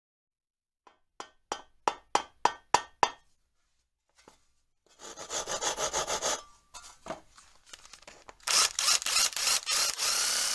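A hand saw cutting wood in rasping strokes, getting louder and faster about two-thirds of the way in. Before it, in the first few seconds, come about eight sharp ringing knocks in a steady beat.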